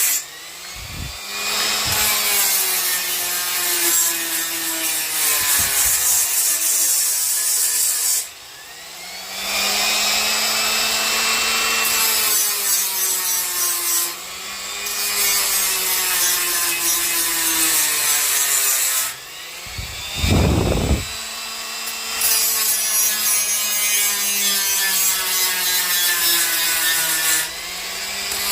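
Cordless die grinder cutting into black walnut wood to shape a spoon: a steady motor whine that sags and recovers in pitch as the bit bites, over a gritty hiss of wood being ground away. It is broken by a few short pauses, and there is a brief low rumble about two-thirds through.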